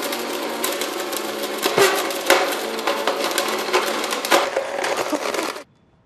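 Blendtec blender running on its smoothie cycle and grinding up an iPhone: a steady motor hum under a constant clatter of sharp knocks as the pieces are thrown against the jar. It cuts off suddenly near the end.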